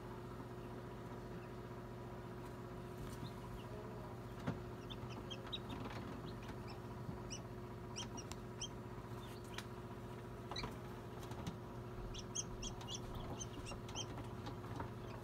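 Newly hatched chicks peeping inside an incubator: short, high peeps in quick runs that start a few seconds in, over the incubator's steady hum.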